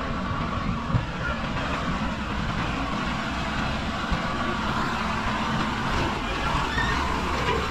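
Tata truck's diesel engine running as it pulls an empty low-bed trailer slowly past, with a couple of short knocks from the rig.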